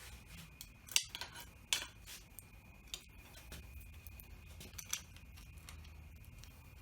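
A few sharp metallic clicks and clinks of a motorcycle handguard, its mounting hardware and hand tools being handled while it is fitted to the handlebar, spaced a second or two apart. A faint steady high tone runs underneath.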